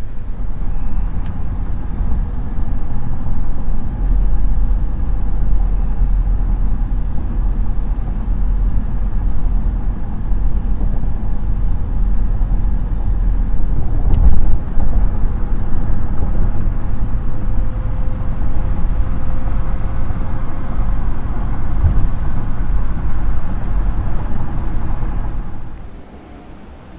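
A moving car's road and engine noise heard from inside the cabin, a loud, steady low rumble at highway speed. It drops away suddenly near the end.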